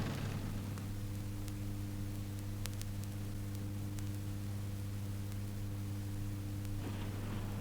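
Steady electrical mains hum with a few faint clicks of crackle from an old recording; a soft hiss comes in near the end.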